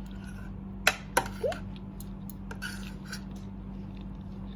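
A few sharp clicks and clinks of utensils on dishes during a meal, two close together about a second in, over a steady low hum.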